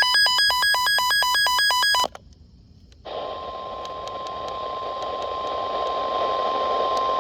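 A loud, rapid two-tone electronic warble lasts about two seconds and cuts off. After about a second's gap, a single steady NOAA Weather Radio warning alarm tone (1050 Hz) comes in over radio hiss, signalling that a severe thunderstorm warning is about to be read out.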